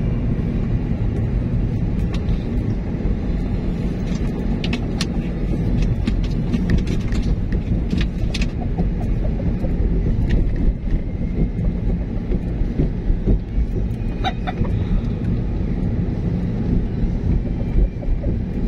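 A car's engine and tyre noise heard from inside the moving car: a steady low rumble with a few light clicks and rattles. A brief short tone sounds about three-quarters of the way through.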